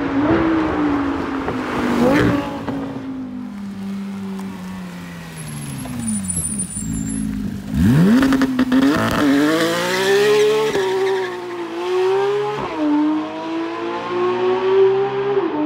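High-revving supercar engines echoing off a road tunnel: an engine note holds, then falls away over several seconds. About 8 seconds in, a Porsche 911 GT3 RS's naturally aspirated flat-six revs up sharply and pulls hard, climbing through the gears with two quick upshifts in the second half.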